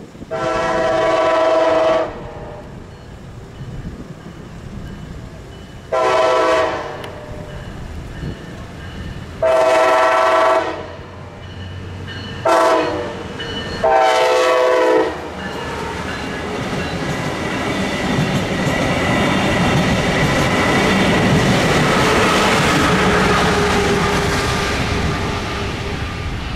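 Locomotive air horn sounding five blasts, long, long, long, short, long, the last four in the grade-crossing signal pattern. Then the rumble and wheel clatter of the train passing swell to their loudest about two-thirds of the way through and begin to fade near the end.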